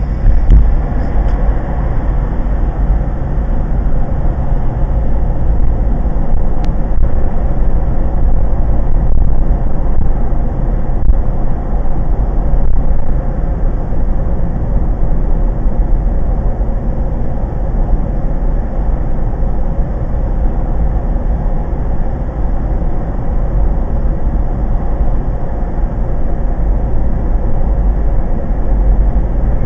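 Steady road and engine noise heard inside a car's cabin while driving on a highway, heaviest at the low end.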